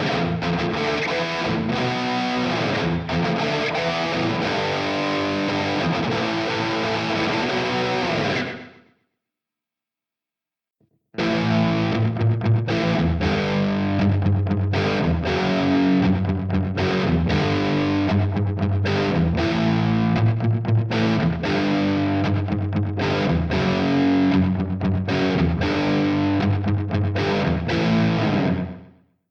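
Distorted electric guitar played through an amp-simulator plugin, in two short passages with a silent gap of about two seconds between them. The second passage has heavier low notes.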